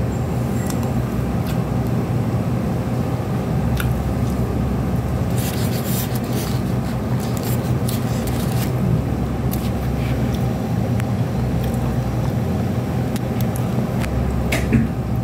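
Steady low machine hum with scattered small clicks and taps, most of them between about five and nine seconds in, and a sharper click near the end.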